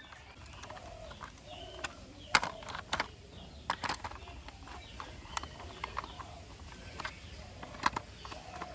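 Scattered small clicks and taps of a screwdriver and hands on a hard plastic toy car chassis as screws are driven into it, about a dozen irregular ticks, quiet overall.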